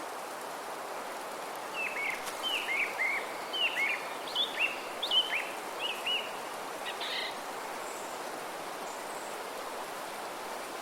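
Steady wind hiss through forest trees, with a bird calling a quick series of short down-slurred chirps from about two seconds in to about seven seconds in.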